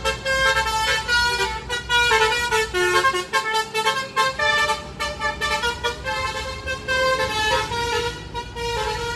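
A bus's basuri telolet horn playing a fast, winding melody of short stepped notes, with a low rumble beneath.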